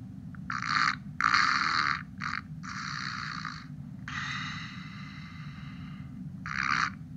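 Recorded snoring effect from the sound decoder of a Trix HO-scale Orient Express baggage car, played through its small built-in speaker as a series of raspy breaths of uneven length.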